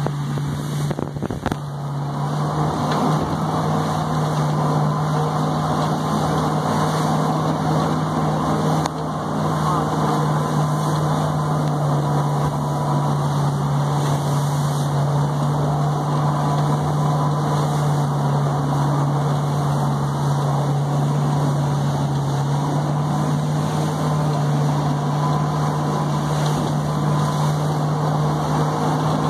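Motorboat engine running steadily at speed with a constant low drone, over the rush of churning wake water and wind.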